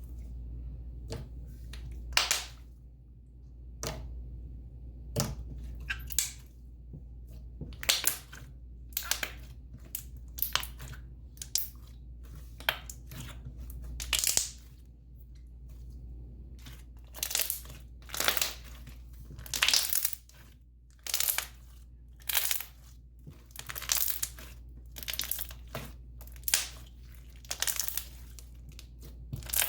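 Thick slime worked by hand, with a run of short, sharp pops and crackles coming irregularly about once or twice a second.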